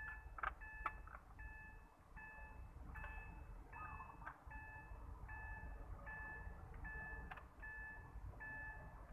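A car's electronic warning chime beeping steadily in an even, repeating pattern, about four beeps every three seconds. A few sharp clicks come as a power-window switch unit is handled.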